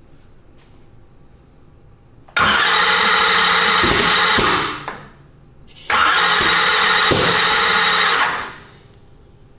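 Turbocharged drag-race engine cranked by its starter motor in two bursts of about two and a half seconds each, with a few thumps as it tries to fire, winding down after each try without catching. The crew suspects the ignition timing is off, after it backfired through the turbo's cold side.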